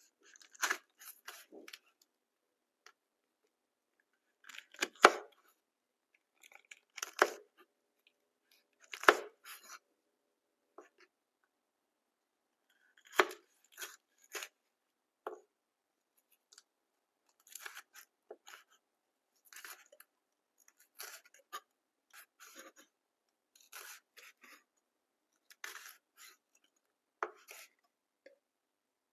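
Kitchen knife slicing through green peppers on a bamboo cutting board: separate crisp cuts with pauses, a few louder strokes in the first half, then a run of lighter, quicker cuts.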